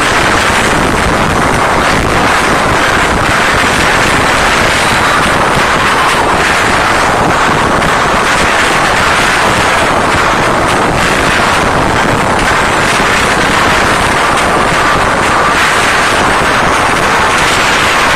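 Concert crowd screaming without a break, overloading a phone's microphone into loud, distorted noise.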